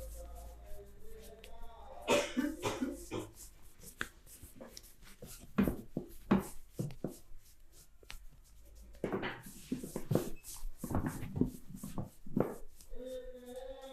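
Irregular bursts of sharp slaps and taps, in clusters of several quick strikes with short pauses between, from hands striking the body during a massage.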